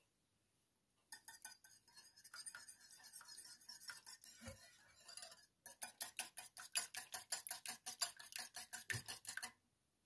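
Wire whisk beating egg in a porcelain bowl: rapid clicking of the metal wires against the bowl, several strikes a second, with a brief pause about halfway and a couple of dull knocks among them. The whisking stops shortly before the end.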